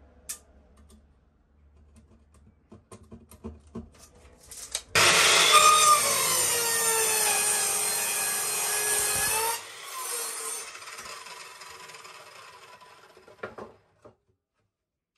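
Evolution electric mitre saw starting suddenly about five seconds in and cutting through a pallet board, its whine sagging in pitch as the blade works through the wood. The motor cuts out about halfway through and the blade runs down, fading over a few seconds. Light clicks and knocks of boards being handled come before the cut and a knock near the end.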